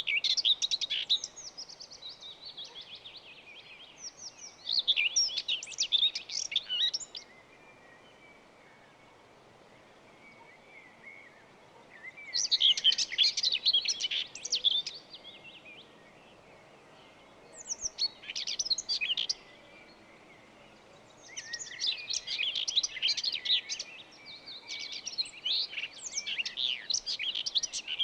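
Birdsong: bursts of rapid, high chirping and warbling notes, each a couple of seconds long with pauses between, the last burst longer, over faint background noise.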